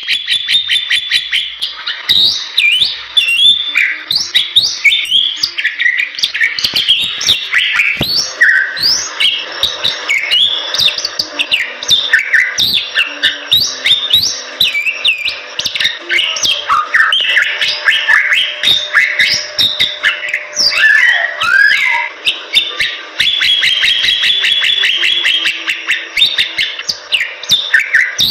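Bali myna singing without a break: a fast, dense stream of short whistled and chattering notes that rise and fall in pitch.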